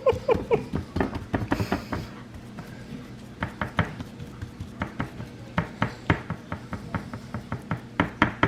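Hands mixing and pressing graham cracker crumbs into a pie crust in a dish: irregular light clicks and taps of fingers against the dish, several a second, easing off briefly about two seconds in and then coming again.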